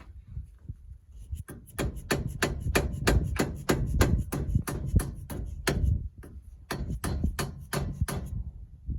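A hammer lightly tapping on a tractor loader's hydraulic cylinder, seating parts during reassembly. The taps come quickly and evenly, about five a second, with a short pause about six seconds in.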